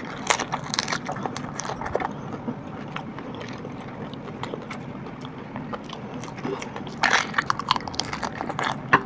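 Pani puri eaten close to the microphone: crisp hollow puri shells cracking and crunching as they are bitten, with chewing between bites. A louder cluster of crunching comes about seven seconds in.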